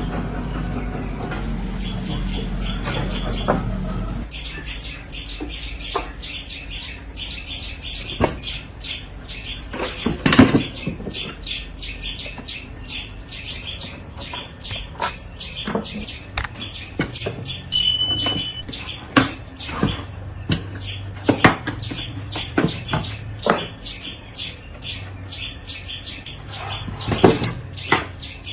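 Birds chirping rapidly and continuously, with scattered sharp knocks and clatters. The loudest clatters come about ten seconds in and again near the end, and a low rumble fades out about four seconds in.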